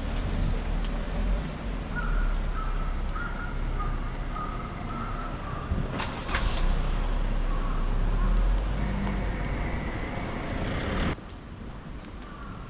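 Street traffic: vehicle engines and tyres passing with a low rumble, and a sharp knock about six seconds in. The level drops suddenly about eleven seconds in.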